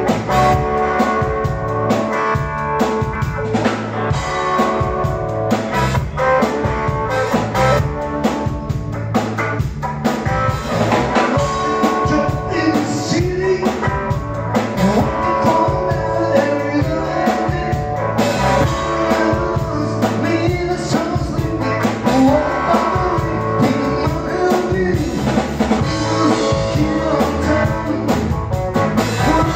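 Live rock band playing: electric guitars over a drum kit, with singing.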